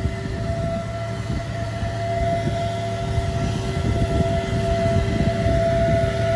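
Diesel engine of a heavily loaded dump truck labouring up a climb: a low rumble with a steady high whine over it. The rumble grows louder from about halfway through.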